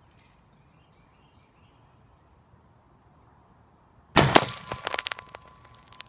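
A can of carbonated liquid bursts open when hit by a BB. About four seconds in there is a sudden loud pop, followed by a second or so of crackling spray and spatter that fades away.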